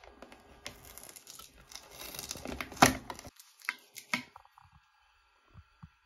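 Clear plastic tape being peeled off a mini fridge's plastic door shelf: a tearing, crinkling rasp of about two and a half seconds that grows louder and ends with a sharp crack, followed by a few light clicks.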